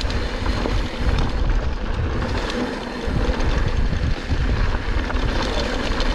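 Wind rushing over the microphone and mountain bike tyres rumbling fast over a dirt trail, with scattered clicks and rattles from the bike.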